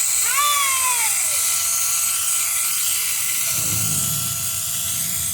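Central Pneumatic air compressor's electric motor running with a steady whine and loud hiss. A single drawn-out call falls in pitch about half a second in.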